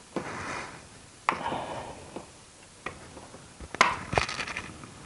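Several sharp clicks and knocks with scraping and rustling between them, the loudest nearly four seconds in, as a cover is worked by hand into place on an electric garden shredder.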